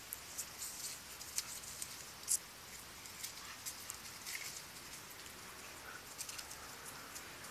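A husky and a pit bull play-wrestling on grass strewn with dry leaves: irregular scuffs and crackles of paws on the leaves, with one sharper click a little over two seconds in.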